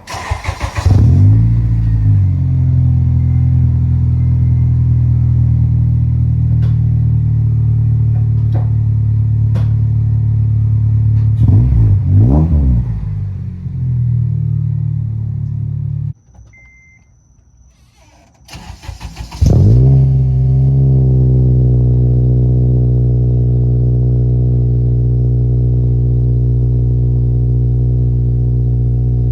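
Honda Civic Si's 2.0-litre four-cylinder engine, breathing through a freshly fitted Skunk2 aftermarket exhaust, starting with a rev flare and then idling with a deep steady drone, in an enclosed space. It gets one brief throttle blip about twelve seconds in, is switched off, then is restarted with another flare and settles back to idle.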